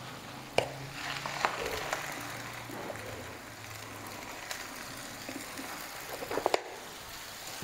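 Oil sizzling faintly under a chicken paratha on a hot tawa, with a few light clicks and scrapes of a spoon spreading the oil, some of them clustered near the end.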